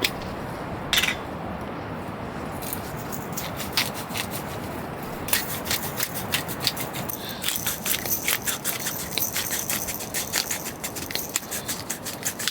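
Crackling and popping from cooking on a wood-burning stove. The pops are scattered at first and become a dense, continuous crackle from about halfway through.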